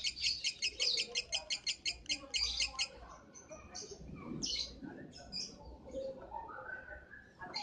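Lovebird chattering in a fast, even trill of high chirps, about eight a second, which breaks off about three seconds in into scattered, irregular chirps.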